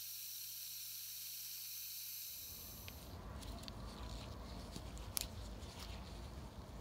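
Compressor-driven brake fluid suction tool hissing steadily as it draws old fluid out of the brake master cylinder reservoir, cutting off about three seconds in. Then come light handling noises and a few small clicks.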